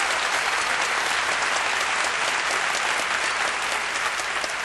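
Audience applauding: dense, steady clapping from a large hall crowd.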